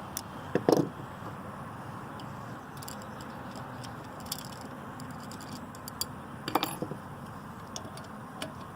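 A few small metallic clicks and taps of a nut and hand tools being handled while a nut is worked back onto a stud, with a cluster of clicks near the middle, over a steady background hum.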